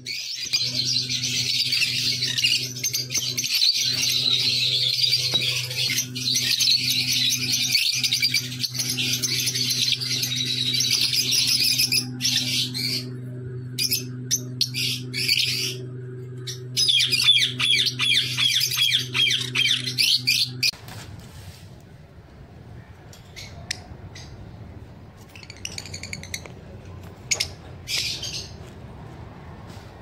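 Caged lovebirds chattering and squawking in a dense, shrill, continuous stream over a steady low hum. About twenty seconds in, the hum stops and the chatter thins to occasional sharp calls.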